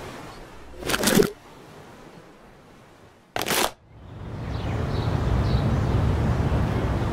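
Two short rushes of noise, the first swelling and cutting off about a second in, the second a sharp burst at about three and a half seconds. Then a steady low outdoor rumble, like wind on the microphone, builds up with faint high chirps above it.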